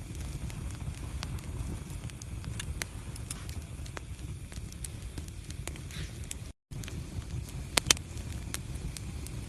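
Wood fire burning in a fireplace: a steady low rumble with scattered small crackles and two sharp pops in quick succession near the end. The sound cuts out completely for a split second about two-thirds of the way through.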